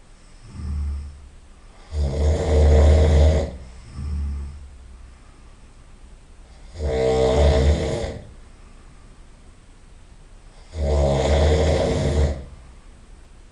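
A sleeping person snoring loudly in a slow, regular rhythm: three long, rasping snores about four to five seconds apart, with quieter breaths between some of them.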